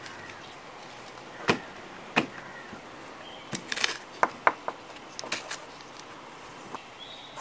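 Small hard objects being handled: about ten sharp clicks and light knocks, scattered irregularly, over a low hiss.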